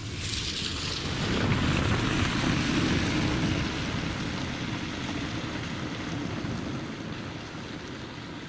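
Wind gusting: a rush of noise that swells about a second in and slowly dies away, with low rumbling from wind buffeting the microphone.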